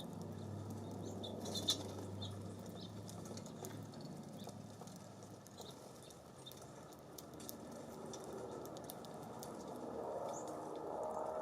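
Small songbirds at a seed feeder: fluttering wings, scattered pecking and seed clicks, and a few short, high chirps, with one sharp tap about a second and a half in, over a low breezy rumble.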